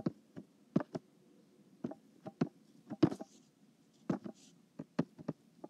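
Stylus tapping and sliding on an iPad's glass screen while handwriting: a string of irregular sharp taps, with a faint scratchy hiss on a couple of strokes.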